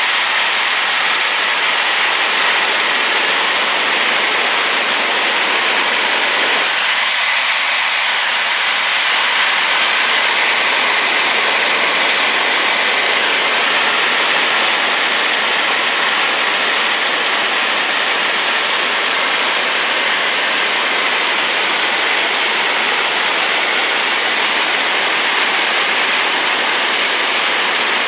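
A large waterfall, swollen and muddy after rain, pouring with a loud, steady rush of falling water, unchanging throughout.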